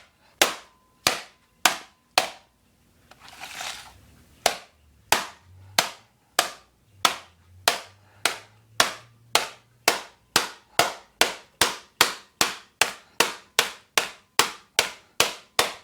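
Hammer striking the underside of a laptop case over and over to force it open. The sharp blows come about two a second and quicken toward the end. They pause briefly about a quarter of the way in for a short scraping rustle.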